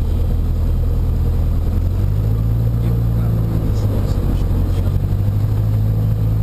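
Cessna 152's Lycoming O-235 four-cylinder engine and propeller running at low power, heard from inside the cabin. The engine note rises slightly about two seconds in, as the power is nudged up for taxiing on grass.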